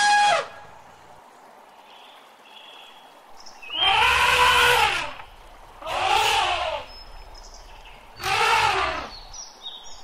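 Elephant vocalising: the tail of a trumpet call at the very start, then three loud calls of about a second each, roughly two seconds apart. Each call rises and then falls in pitch, with a deep low rumble under it.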